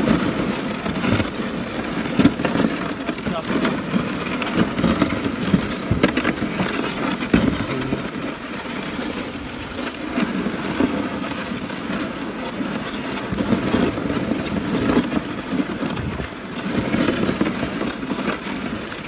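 Dog sled running over packed snow behind a husky team: a continuous rushing, scraping noise from the runners and the ride, with scattered brief knocks.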